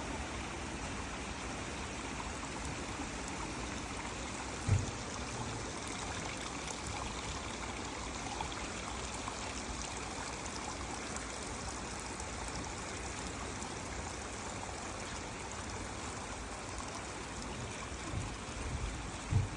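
A stream of water running steadily, with a brief low thump about five seconds in and a few more near the end.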